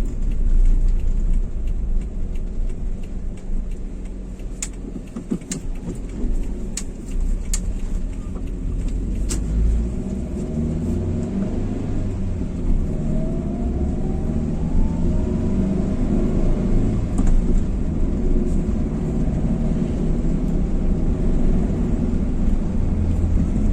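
Cabin sound of a 2011 Daihatsu Xenia 1.3 driving: steady engine and road rumble, with a few light ticks in the first ten seconds. About thirteen seconds in, the engine revs up in a rising whine for a few seconds. The engine has just had a carbon-cleaning tune-up, which the mechanic says cured its rough, snoring running.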